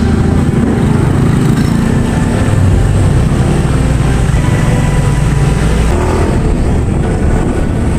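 Motorcycle engine running at riding speed, with wind and road noise.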